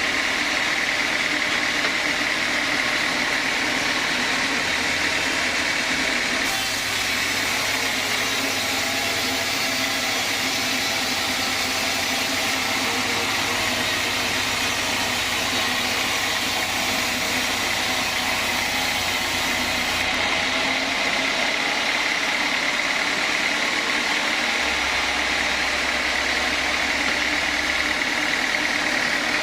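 Sawmill saw and its motor running steadily, a continuous mechanical noise with a constant high whine.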